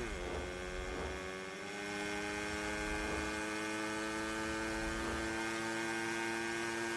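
Motorcycle engine sound effect: a steady drone at full speed, its pitch dipping slightly at the start and then holding level.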